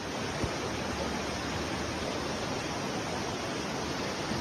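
Floodwater rushing down a street in a flash flood, a steady wash of water noise, with one short click about half a second in.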